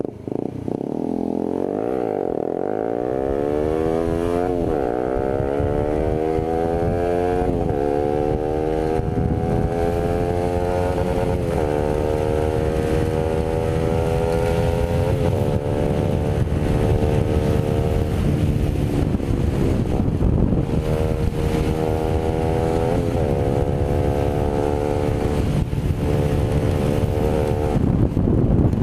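Honda CBR150R's single-cylinder engine pulling away and accelerating through the gears. Its pitch rises and drops back with three upshifts in the first dozen seconds, then holds a steady cruising note with small throttle changes.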